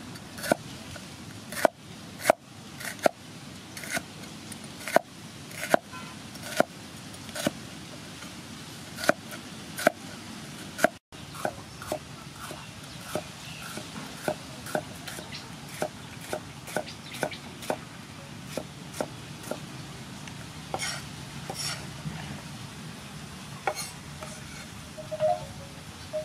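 Cleaver chopping bitter gourd on a round wooden cutting board: a steady series of sharp knocks of the blade through the gourd onto the wood, about one or two a second, becoming lighter and quicker after about eleven seconds.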